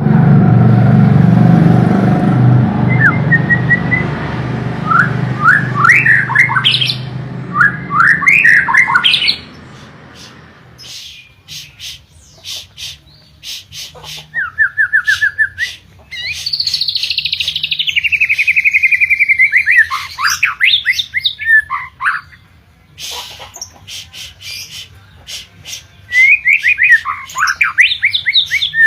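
White-rumped shama (murai batu) singing in quick bursts of varied whistled phrases and rapid trills, with many sharp clicks between phrases. A loud low rumble underlies the song for the first ten seconds and stops abruptly.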